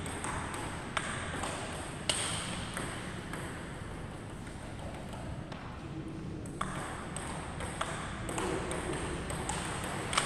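Table tennis ball clicking off paddles and the table: two single knocks in the first two seconds, then a quick run of pocks in a rally from about six and a half seconds in.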